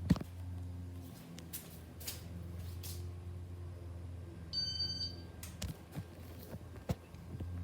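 Casablanca Hermosa 52-inch ceiling fan motor running with a steady low hum. A sharp click comes right at the start, a few softer clicks follow in the second half, and a brief high-pitched tone sounds about halfway through.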